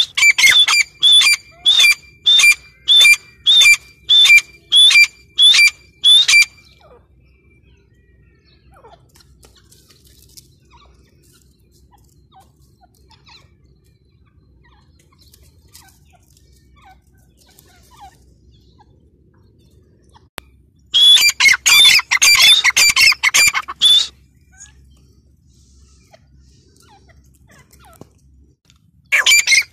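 Female grey francolin calling. First comes a run of about ten loud, sharp calls, evenly spaced at roughly one and a half a second. After a long quiet stretch come about three seconds of fast, harsh calling, which starts again just before the end.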